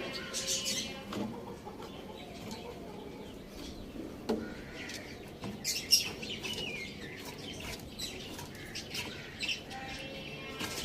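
Chickens clucking and calling while feeding: scattered short, high chirps and calls with sharp clicks, and one downward-gliding call about six seconds in.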